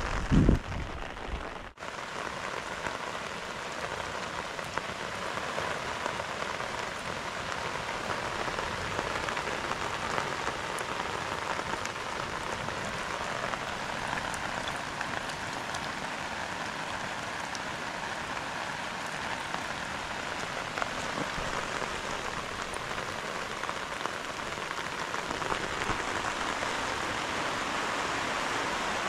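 Steady rain falling, an even hiss of drops that holds without a break. A few dull low thumps sound in the first second or two.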